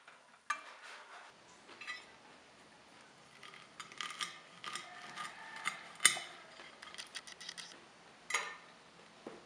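Knife and fork cutting through the crisp breadcrumb crust of a fried pork cutlet on a glass plate: irregular crunching crackles and utensil clicks, loudest about six seconds in.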